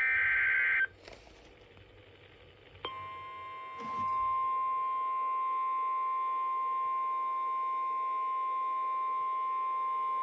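A brief burst of SAME digital data, the screechy modem-like EAS header, for under a second. About three seconds in, the NOAA Weather Radio 1050 Hz warning alarm tone starts: one steady, unbroken beep that holds on, signalling that a warning (here a severe thunderstorm warning) follows.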